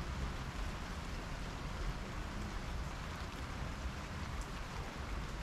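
Steady rain falling on a wet slatted garden table and the plants around it, with scattered drops ticking, over a low rumble.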